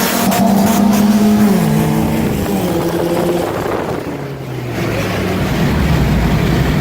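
Turbocharged car engine under hard acceleration, heard from the car. Its pitch drops about one and a half seconds in as it shifts gear, and it briefly eases around four seconds before pulling again at a lower pitch.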